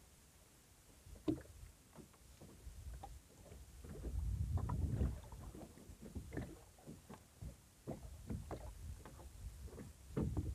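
Sounds on a small boat at sea: low gusty rumble of wind on the microphone, swelling about four seconds in and again near the end, with scattered short knocks and splashes.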